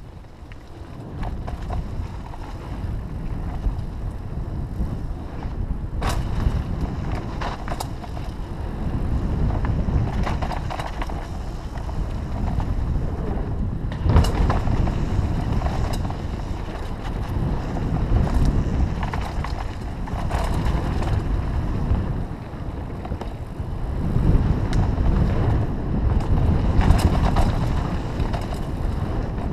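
Mountain bike riding fast down a dirt trail: wind rushing over the action camera's microphone with tyre and chassis rattle, swelling and easing with speed, and a few sharp knocks as the bike hits bumps.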